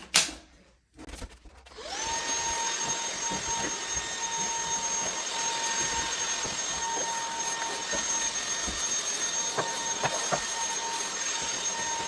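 Belife S11 cordless stick vacuum's digital motor spinning up with a rising whine about two seconds in, then running steadily with a high-pitched whine over a rushing hiss of suction. A single knock at the very start, and a few small ticks in the later part.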